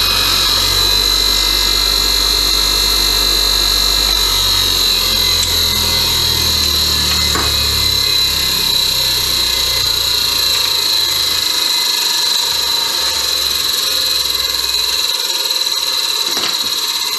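Titan 200mm bench grinder running at speed while a rusty nut and bolt are held against its wire wheel to clean them, a steady high whine with scratching. In the second half the motor's hum dies away with a slowly falling pitch, as the grinder is switched off and spins down.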